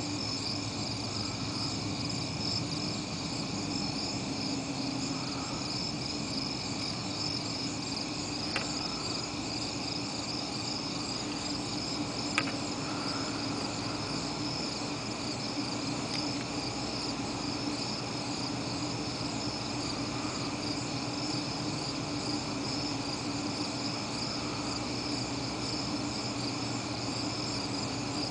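Steady night chorus of crickets and other insects: several high, unbroken trills layered together over a low steady hum. Two sharp clicks stand out, about eight and twelve seconds in.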